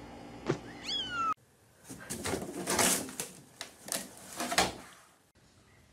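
A kitten gives one short meow that falls in pitch. A moment later comes a run of noisy rustles and bangs lasting about three seconds.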